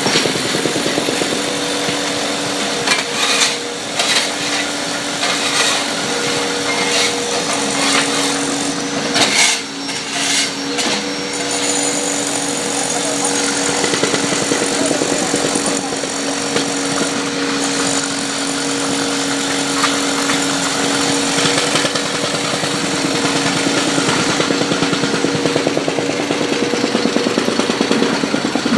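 Street-repair machinery breaking up pavement: a jackhammer hammering rapidly over a steady engine hum, with a few louder knocks in the first half.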